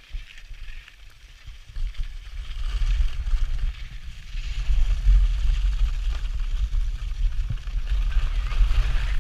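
Wind buffeting the microphone of a camera skiing downhill, a heavy rumble over the scrape of skis on groomed snow, growing louder about two seconds in.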